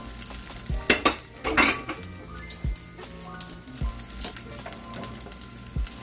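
Raw chicken pieces sizzling in a nonstick frying pan with very little oil. A handful of sharp clicks and knocks of metal tongs and utensils against the pan and the counter are spread through it.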